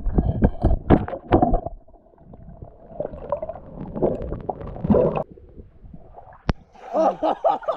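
Muffled underwater knocking, bubbling and rumbling from a camera held underwater while swimmers wrestle a speared fish. About six and a half seconds in there is a sharp click and a cut to above the water: splashing and people's voices.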